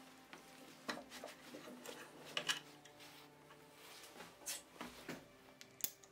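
Scattered metallic clicks and knocks from working a metal bench vise: its handle being turned and a small wooden block with a steel washer being set and adjusted in the jaws. The loudest is a pair of sharp knocks about two and a half seconds in.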